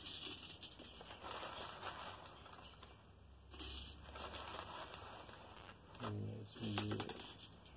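Plastic bag rustling and crinkling in uneven spells while activated carbon granules are poured from it into an aquarium power filter's media cartridge.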